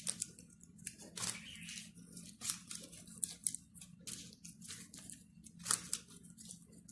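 Hands rolling and stretching soft yeast dough into thin ropes on a work surface: an irregular run of short rubbing, brushing strokes.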